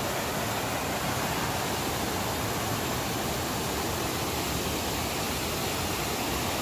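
Steady rushing of Tangle Falls, a tiered waterfall spilling over rock ledges.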